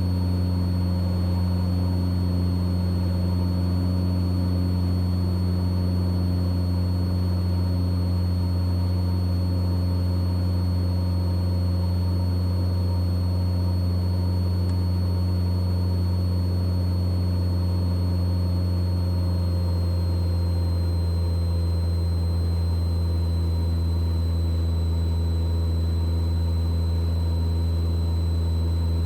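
Mooney M20E's four-cylinder Lycoming IO-360 engine and propeller running steadily at climb power after takeoff, a constant low drone. About two-thirds of the way through, the pitch eases slightly lower.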